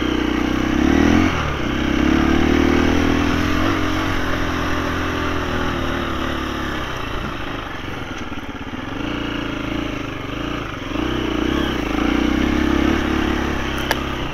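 KTM 350 four-stroke single-cylinder dirt bike engine under way, its revs rising and falling with the throttle, with a sharp dip and climb about a second in. A single sharp click near the end.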